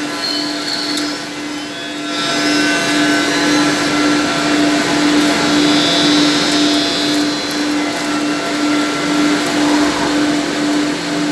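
4-axis CNC copying shaper running as it mills wooden brush blocks, giving a steady whirring noise over a pulsing hum. A higher-pitched whine comes in about five seconds in and fades out again after about three seconds.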